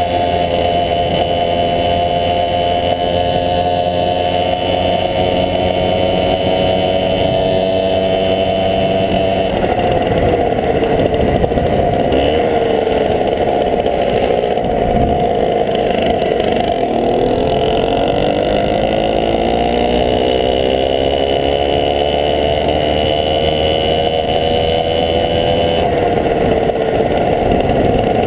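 The 50cc two-stroke engine of a 1971 Tunturi Maxi moped running under way. Its pitch holds steady, falls as the moped slows for a corner about ten seconds in, bottoms out a few seconds later, then climbs back as it picks up speed, with a short dip near the end.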